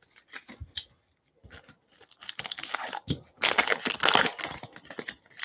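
A foil trading-card pack wrapper being torn open and crinkled. A few light clicks come first; the crackling starts about two seconds in and is loudest near the middle.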